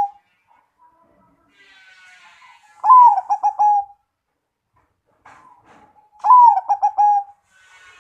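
Zebra dove (perkutut) singing: two full song phrases about three and a half seconds apart, each a soft higher lead-in followed by a loud falling coo and a quick run of pulsed notes ending on a held note. The tail of a previous phrase ends just at the start.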